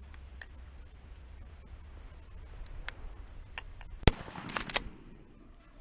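A single shotgun blast at turkeys, loud and sharp, followed about half a second later by a quick run of three clicks.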